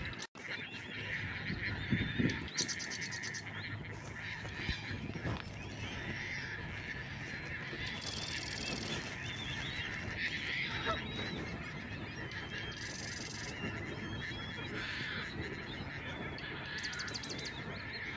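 Wild birds calling steadily, with four short, high, rapid trills spaced a few seconds apart.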